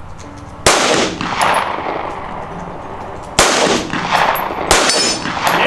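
Gunshots fired at a distant target: four sharp shots, the first about a second in and the other three in the second half, each followed by a long fading echo.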